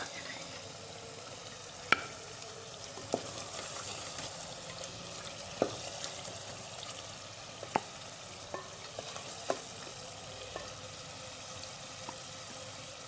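Chicken karahi sizzling and bubbling in a metal pot as a spoon stirs it. A few sharp knocks come at uneven intervals as the spoon hits the pot.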